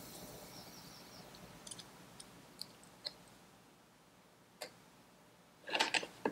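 Small metal tool clicking and scraping against the spring clips on the brake-shoe posts of a Vespa PX rear brake as the clips are pressed down to be hooked off. A soft hiss fades away at the start, then come scattered light clicks and a quick cluster of louder clicks near the end.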